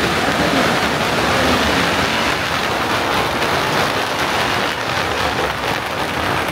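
A long string of firecrackers going off in a dense, unbroken crackle of rapid bangs, easing off a little over the last few seconds.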